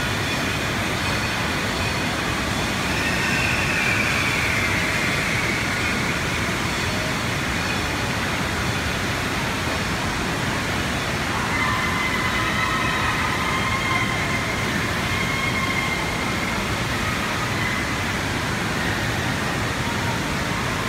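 Steady rush of water gushing from water-slide outlets into a splash pool and churning it.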